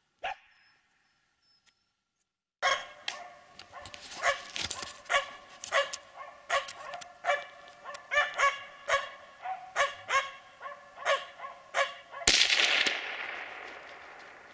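Finnish spitz barking steadily at a treed capercaillie, about two barks a second, the rhythmic tree-barking that holds the bird and marks it for the hunter. Near the end a single sharp gunshot cracks out, the loudest sound, and fades away slowly.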